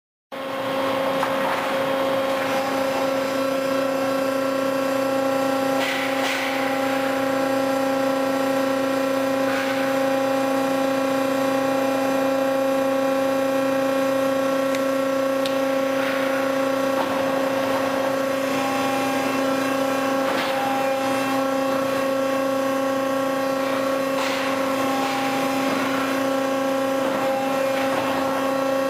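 Lumber stacker machinery running with a steady pitched whine and hum, with a short clatter every few seconds.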